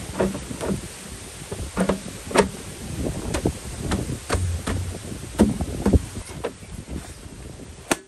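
A run of sharp knocks or chopping strokes at uneven spacing, roughly one to two a second, over a steady background hiss.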